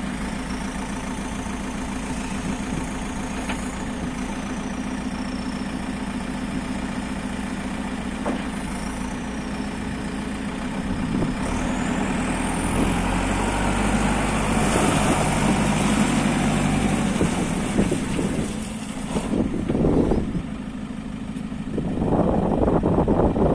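JCB 3CX backhoe loader's diesel engine idling steadily, then revving up about eleven seconds in with a rising whine. It drops back briefly and revs up again near the end.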